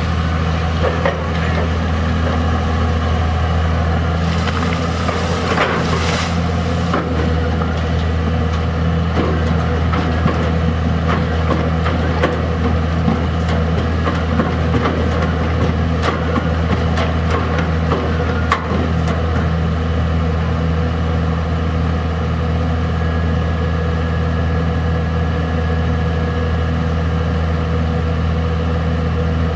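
Diesel engine of a Komatsu PC200 long-arm excavator running steadily at constant speed, with scattered light clanks and knocks for a stretch in the middle.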